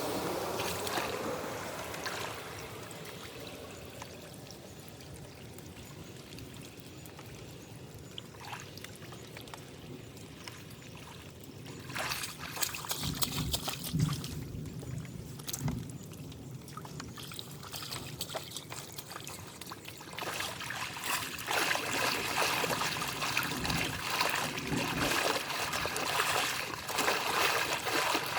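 Water trickling and pouring as it drains, getting louder about twelve seconds in and again from about twenty seconds on, with scattered clicks and knocks.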